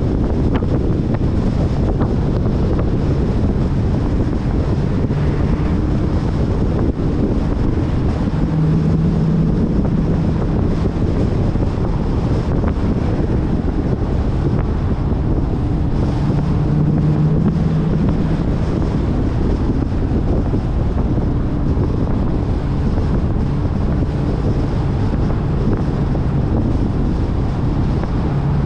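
Steady rushing of wind on the camera microphone and tyres on a wet road as the Dodge Challenger R/T drives along. The 5.7-litre HEMI V8 comes through underneath as a low hum that swells a few times.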